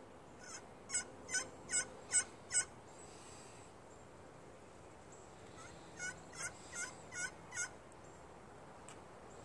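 Al Chapman pocket slate turkey call, a striker drawn across the slate, playing two series of hen yelps: about six notes in quick succession, a pause of about three seconds, then about five more.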